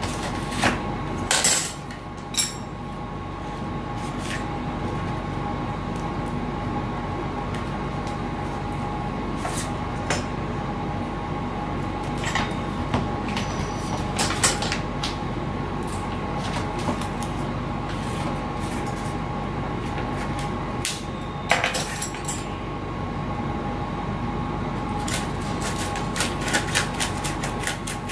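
Scattered clicks, taps and knocks of tools and parts being handled and set down on a workbench while a foam RC wing is worked on, over a steady background hum with a faint high whine.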